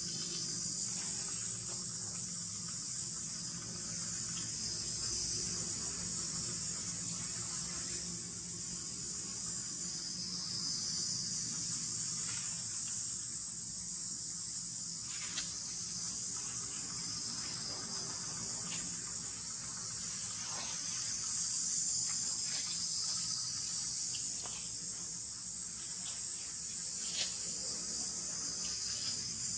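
Steady high-pitched chorus of insects buzzing without a break, with a few short faint ticks.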